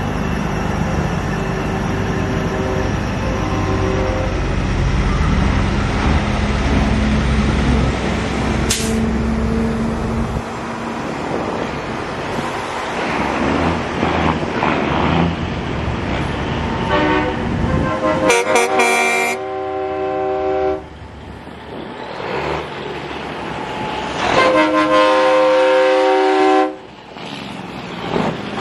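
Semi-truck diesel engines running as big rigs drive past, loudest in the first third, then air horns blasting: a short blast about two-thirds of the way in and a longer chord-like blast near the end.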